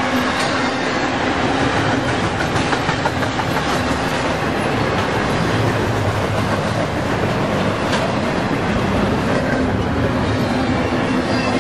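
Double-stack intermodal container train rolling past, with a steady rumble and clatter of its well cars' wheels on the rails.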